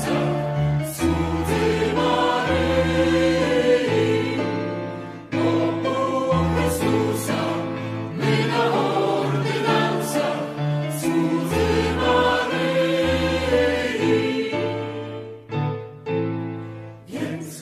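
Music: a choir singing slow, held notes over a steady bass line.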